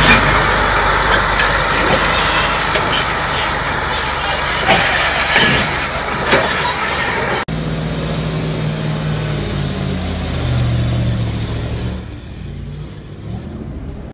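Heavy multi-axle military truck driving past on a dusty track: loud engine, tyre and wind noise with scattered knocks. After a sudden cut, a second heavy truck's engine labours as it climbs a dirt slope, its low note shifting in steps, and it grows fainter about two seconds before the end.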